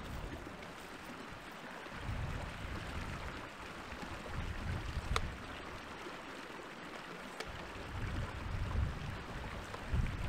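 Small moorland brook running and babbling over rocks, a steady rush of water. Low rumbles of wind on the microphone come and go, and there is a single sharp click about halfway through.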